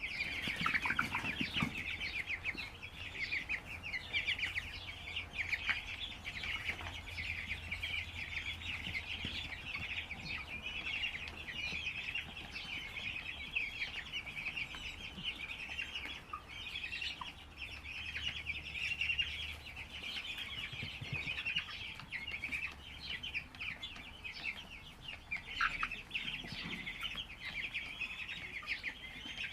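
A large flock of broiler chickens peeping and chirping continuously, many short high calls overlapping, over a faint low steady hum.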